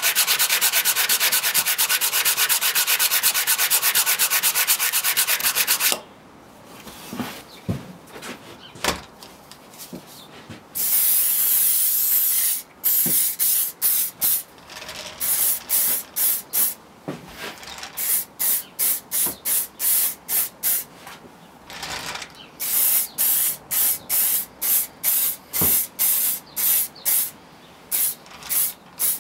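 Rapid back-and-forth hand sanding of oak with a sanding sponge for about six seconds. After a short pause with a few knocks comes an aerosol spray can: one long hiss, then many short spray bursts as a finish is sprayed onto the wood.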